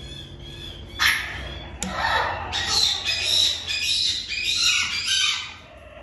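Caique parrot giving a run of loud, harsh squawks from about a second in until near the end, with a sharp click about two seconds in.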